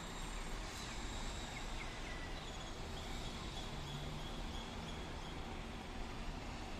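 Faint, scattered calls of a large flock of common starlings over a steady background noise.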